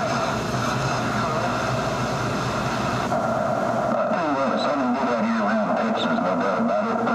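CB radio receiving over skip: loud static and hiss, with a garbled, warbling transmission breaking through about four seconds in as the signal strengthens.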